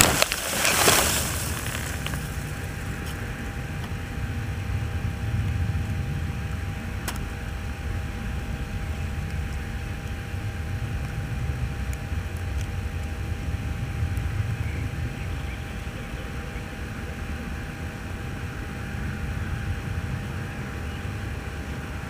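A brief rustle of crop stalks in the first second as a radio-controlled glider comes to rest in a field. Then the plane's onboard camera picks up a low, wavering wind rumble on its microphone, with a faint steady hum.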